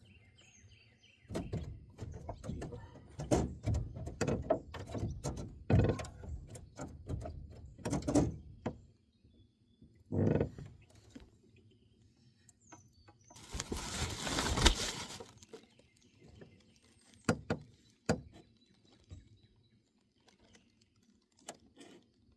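Irregular knocks, thunks and rustling as a freshly caught bream is handled in a small fishing boat. A longer burst of rustling comes about two-thirds of the way through, and only a few faint clicks follow.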